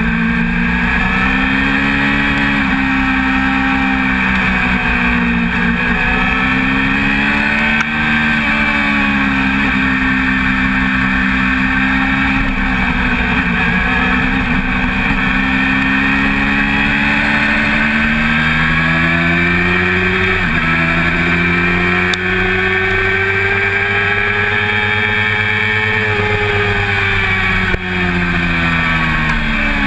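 1988 Honda CBR400RR's four-cylinder engine at racing speed, its note climbing and falling with the throttle, with a few sudden drops in pitch at gear changes near the end.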